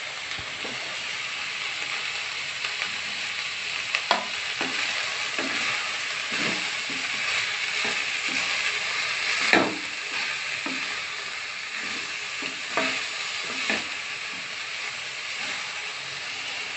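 Mixed vegetables and soya chunks sizzling in hot oil in a metal kadhai as they are stir-fried, with a steady hiss. The spatula scrapes and knocks against the pan now and then, with one louder knock a little past halfway.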